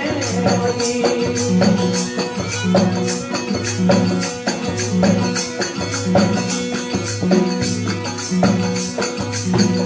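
Instrumental break of a Rajasthani desi veena bhajan: folk accompaniment with steady held tones, a repeating low bass beat and evenly spaced jingling percussion like tambourine or hand cymbals. The last sung word trails off about a second in.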